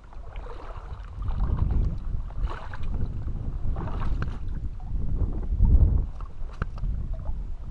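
Wind buffeting the microphone in an uneven low rumble, with scattered sharp clicks and scuffs of footsteps over rocks.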